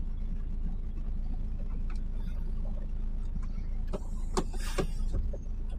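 DAF lorry's diesel engine idling steadily, heard from inside the cab, with a few sharp clicks about four seconds in.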